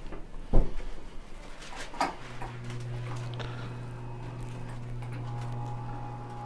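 A loud thump about half a second in and a smaller knock around two seconds, as a patient settles face down on a padded treatment table. Then a steady low electric hum starts and keeps going.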